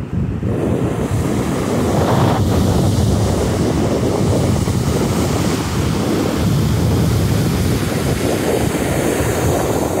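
Small sea waves breaking and washing up a sandy beach in a steady surf wash, with wind buffeting the microphone.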